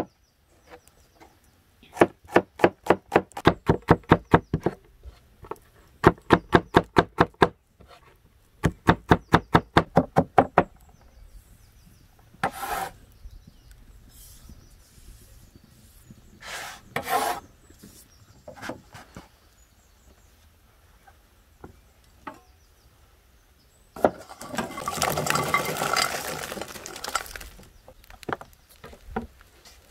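A heavy cleaver chopping onion on a thick wooden board: three quick runs of knocks, about five strokes a second, in the first half. Then the blade scrapes the board, and near the end there is a longer rustling, scraping noise.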